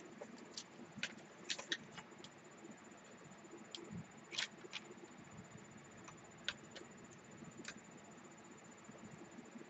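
Faint, scattered clicks and taps of hands fitting a tower CPU cooler's heat-pipe heatsink and its mounting hardware onto a motherboard.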